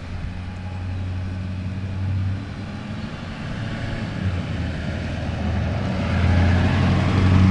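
A big truck's engine running as it drives past, a steady low drone that dips slightly and then grows louder toward the end.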